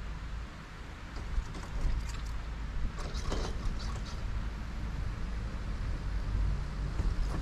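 Chairlift ride: a steady low rumble of the moving chair and cable, with wind on the microphone. A run of light clicks and rattles comes between about one and four seconds in.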